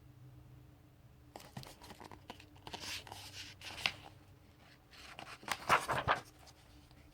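Paper pages of a comic book trade paperback being turned and handled, a rustling run of page flips with sharp crinkles, loudest around four seconds in and again near six seconds, then stopping.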